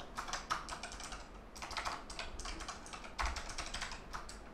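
Keys of a Razer computer keyboard being typed and pressed in irregular bursts of clicks, as the keyboard is tested to see whether it still works after being cleaned with isopropyl alcohol.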